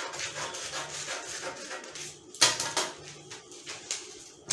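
Paper sewing pattern rustling and crinkling as it is folded and pressed flat on a glass tabletop to close a dart, with two sharp clacks a little past halfway as metal scissors are set down on the glass.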